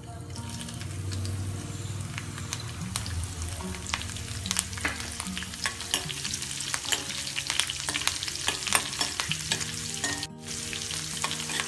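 Finely chopped green chillies and cumin sizzling in hot oil in a kadhai, stirred with a spoon, with a steady hiss full of small crackles and spits. The sound briefly drops out about ten seconds in.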